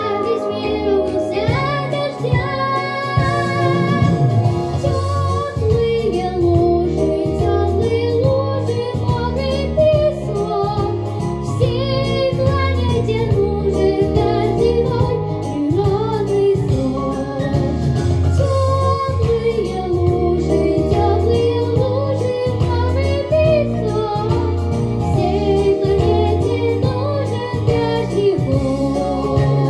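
A young girl singing a song into a handheld microphone over instrumental accompaniment with a steady bass line.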